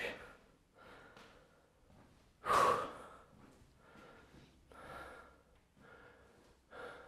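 A man breathing hard as he recovers from a high-intensity exercise bout: one loud exhale about two and a half seconds in, with softer breaths about once a second around it.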